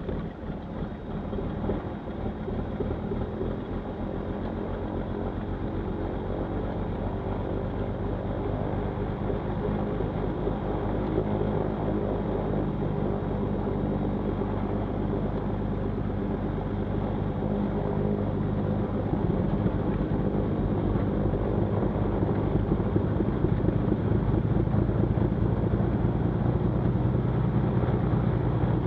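Cessna 310Q's six-cylinder piston engine catching right at the start and settling into a steady idle, which grows louder about two-thirds of the way through.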